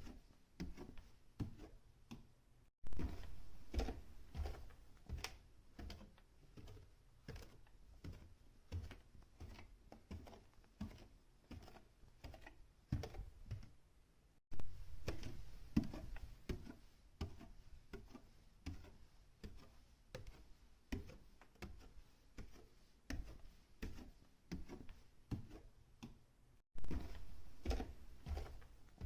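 Footsteps climbing and descending a staircase indoors, a steady run of short steps about two to three a second. The sound cuts abruptly to a new take three times.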